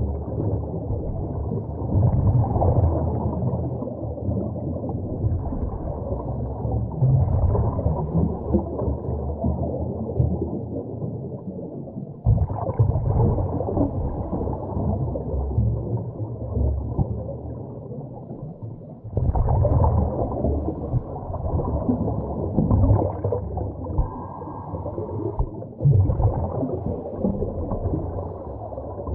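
Scuba regulator breathing heard underwater: muffled bursts of exhaled bubbles every four to six seconds over a constant low rumble.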